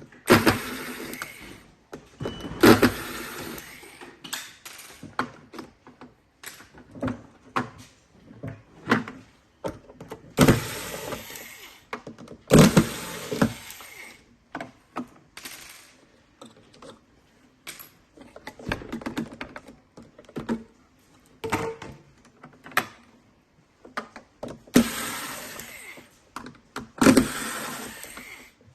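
Plastic housing and parts of a ROIDMI robot-vacuum base station being handled and taken apart by hand: irregular clicks, knocks and rattles, with several longer stretches of scraping and rustling.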